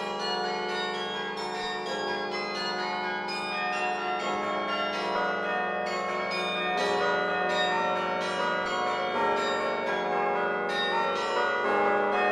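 Laura Spelman Rockefeller Memorial Carillon played from its baton keyboard: bells struck in a quick succession of notes, many ringing on and overlapping one another.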